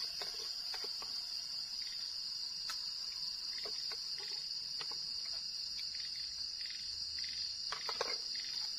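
A steady, high-pitched chorus of night insects chirring without a break, with scattered faint clicks and a small cluster of taps near the end.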